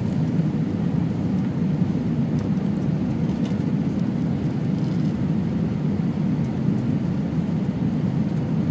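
Airbus A320 cabin noise on final approach, heard from a window seat over the wing: a steady low rumble of engines and airflow with no change in pitch or level.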